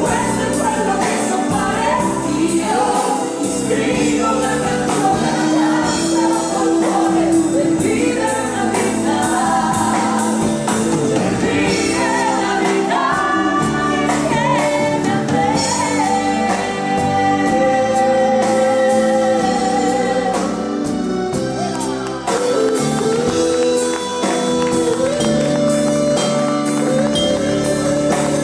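Live band playing an Italian pop ballad, with a woman singing over drums and keyboards.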